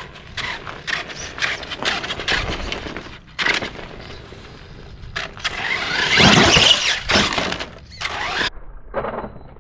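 Traxxas E-Maxx electric RC monster truck with a VXL brushless motor on 4S LiPo being driven in short bursts, its tyres crunching over grit on broken asphalt. The loudest burst of driving comes about six seconds in, and the sound cuts off suddenly about eight and a half seconds in.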